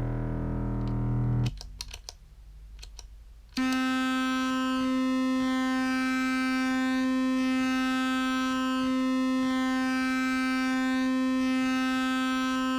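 Fuzz-distorted sustained drone of a contrabass clarinet note held by a Superego+ sustain pedal. A low note cuts off about a second and a half in, followed by a few sharp clicks in a short gap. A new, higher sustained note then comes in abruptly and holds steady.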